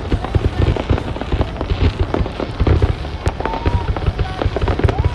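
Fireworks display in full swing: a rapid, irregular run of deep booms from bursting aerial shells, mixed with crackling.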